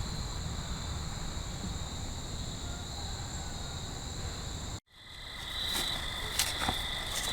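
Steady evening chorus of crickets and other insects, a continuous high-pitched trilling. About two-thirds of the way in the sound cuts out for an instant and the chorus resumes with a slightly different pitch, then a few faint clicks follow.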